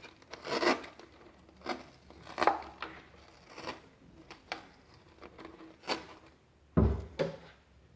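Masking tape being pulled off the roll and wrapped around a plastic bottle: irregular short rasps and rustles, with a heavier thump near the end.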